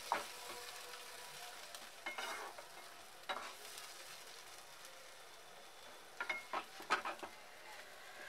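Tomato and red-chilli paste frying in hot oil in a kadai, being fried down (bhuna) with a steady sizzle. A spatula stirs and scrapes through it in clusters of strokes about two seconds in, about three seconds in, and again between six and seven seconds.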